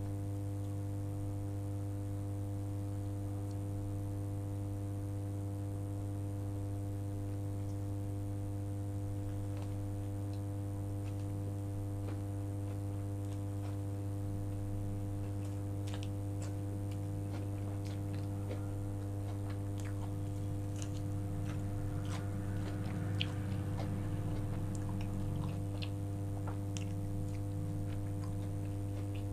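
Biting and chewing a soft, filled steamed bao bun: scattered small wet mouth clicks and smacks, busier in the second half, over a steady low electrical hum.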